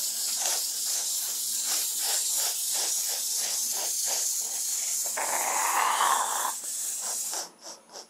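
Clockwork wind-up motor of a clip-together plastic Stegosaurus kit whirring as the toy walks on a wooden table, with a regular clicking of about two to three steps a second. It runs down and stops about seven seconds in. A louder breathy hiss rises over it for about a second shortly before it stops.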